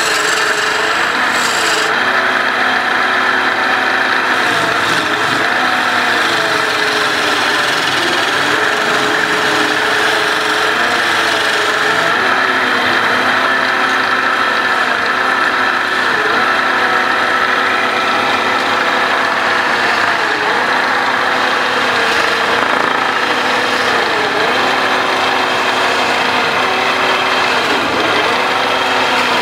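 Wood lathe spinning a long wooden sofa leg while a hand-held turning tool cuts into it: a steady rasping scrape of wood being shaved over the motor's hum. The hum dips in pitch briefly several times, most often in the second half.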